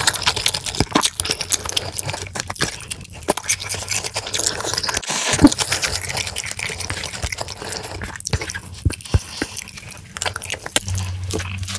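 Close-miked eating sounds: wet chewing of a mouthful of jjajangmyeon, then a bowl of cooked rice tipped out of a plastic bowl into the black-bean sauce, with scattered clicks of utensils and bowls. The loudest sound is a sharp knock about five and a half seconds in.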